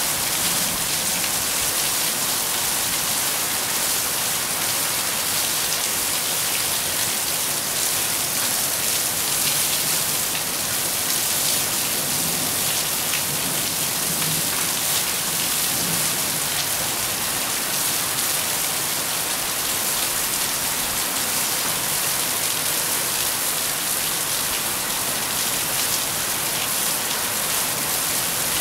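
Steady rain: an even hiss of falling drops with fine individual drop ticks through it.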